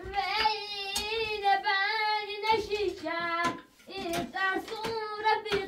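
A high-pitched voice singing long, wavering, held notes without accompaniment, with a short break about two-thirds of the way through. Several sharp clicks or taps sound over it.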